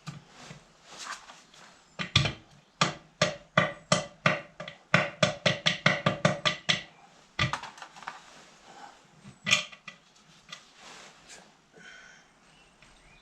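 A hammer tapping on metal: a run of sharp, ringing strikes that come faster, about four a second, before stopping, then one more strike a few seconds later.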